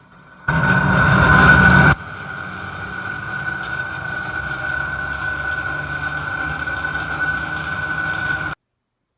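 Bathroom exhaust fan running with an abnormal noise: a steady hum with a high whine over it, loud for about a second and a half after it starts, then settling lower and cutting off suddenly near the end.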